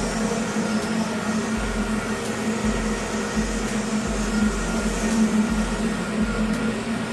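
Dual-fuel boiler's burner running through its start sequence on gas, a steady mechanical hum with a low rumble that comes and goes. The attempt ends in a safety lockout because no gas is reaching the burner.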